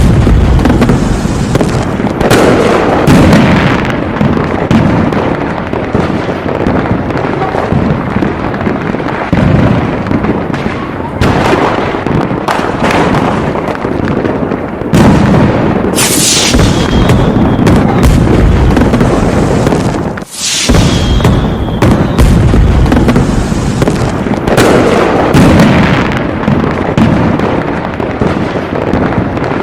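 Aerial fireworks display: shells going off in a continuous barrage of booms and crackling bursts. A short high whistle comes through twice in the second half, and the barrage drops out for an instant shortly before.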